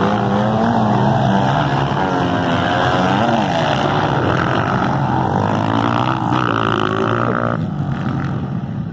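Several motocross motorcycle engines revving together, their pitches rising and falling over one another; the loudest high engine note cuts off sharply near the end.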